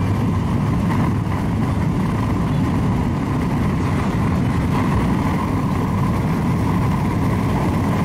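Steady engine and tyre road noise heard inside an intercity bus cruising along a highway.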